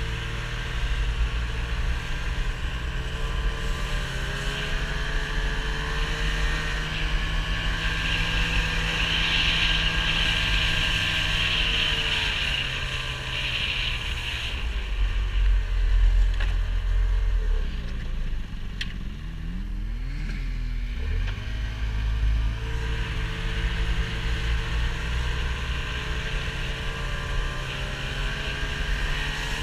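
A motor vehicle's engine running steadily; about two-thirds of the way through the revs drop off and then climb back up.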